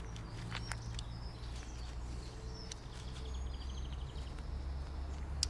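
Faint, short bird chirps and a few light clicks over a steady low hum.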